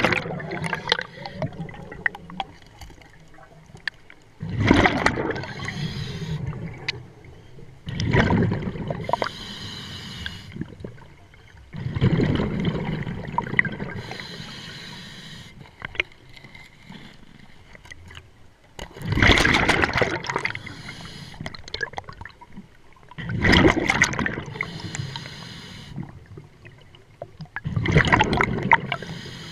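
Scuba diver breathing through a regulator underwater: a burst of rumbling exhaust bubbles on each exhale, six in all, every four to seven seconds, with a quieter hiss of inhaled air between them.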